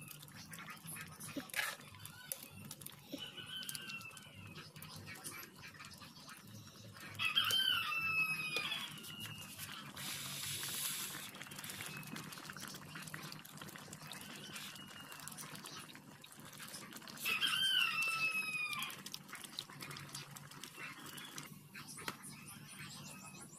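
A rooster crowing twice, about ten seconds apart, each crow about a second and a half long and falling in pitch at the end, with a fainter call a few seconds in.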